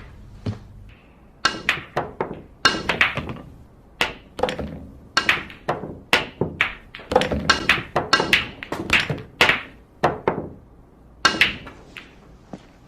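Billiard balls clacking against each other and cue tips striking balls, a fast irregular run of many sharp clicks that starts about a second and a half in.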